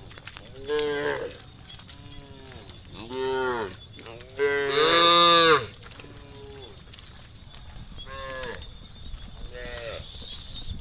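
Cows in a herd mooing one after another, about seven calls of varying loudness, each rising and falling in pitch. The longest and loudest moo comes about four and a half seconds in.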